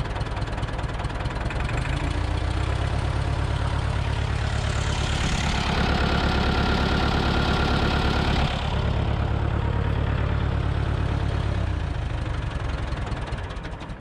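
1970s Massey Ferguson backhoe's Perkins diesel engine running. It picks up speed about two seconds in, is held on raised throttle, then settles back near the end. The throttle is raised to show heavy blow-by, with crankcase pressure pushing out of the dipstick tube.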